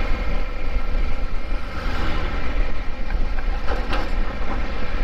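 Triumph Tiger 1200 Rally Explorer's three-cylinder engine running steadily under way, with heavy wind rumble on the microphone.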